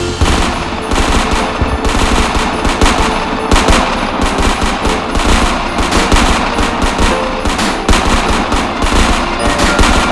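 Fireworks sound effect: a dense barrage of rapid bangs and crackles.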